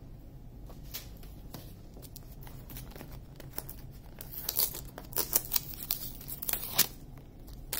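Packaging crinkling and tearing as a kit box is opened: a few fairly quiet seconds, then an irregular string of sharp crackles from about halfway through.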